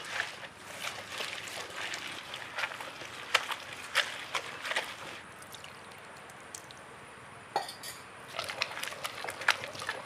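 Stone roller of a traditional hand grinding stone turning through wet coconut-and-spice paste in its stone basin: irregular wet, gritty scrapes and squelches. It goes quieter for about two seconds past the middle, then resumes.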